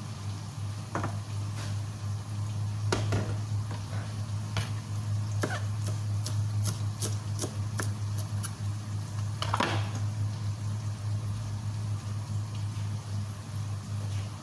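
A steady low hum, with light clicks and taps scattered through, a quick run of them past the middle and one louder tap near ten seconds in.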